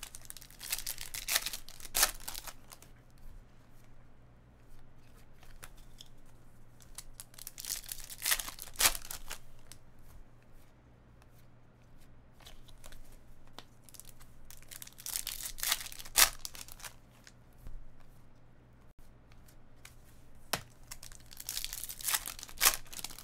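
Foil wrappers of Bowman baseball card packs being torn open by hand, four times, about seven seconds apart. Each tear is a loud crinkling rip, with quieter wrapper crinkle and card handling in between.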